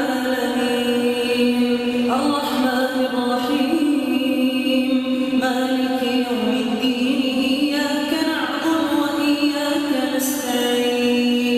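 Melodic Quran recitation: a single unaccompanied voice chanting in long drawn-out held notes, moving up and down in pitch in steps every second or few.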